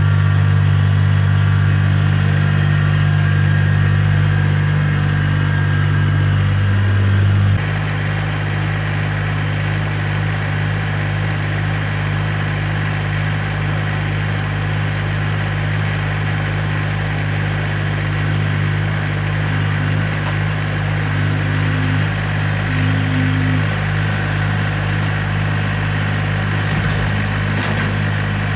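Kubota BX2680 compact tractor's three-cylinder diesel engine running steadily. About a quarter of the way in it drops suddenly to a lower, quieter idle, then runs on evenly.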